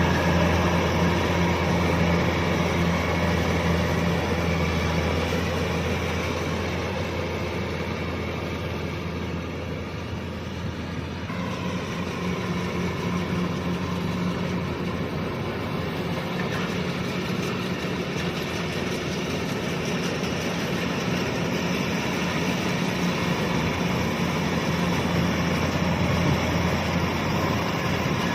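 Kubota DC-105X combine harvester running steadily in the rice field: a diesel engine drone mixed with the clatter of the cutting and threshing gear. It fades a little about a third of the way in, then comes back up.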